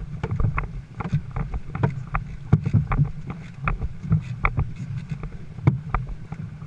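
Dragon boat under way with paddles working: many sharp, irregular splashes and knocks in the water over a low, steady rumble of wind on the microphone.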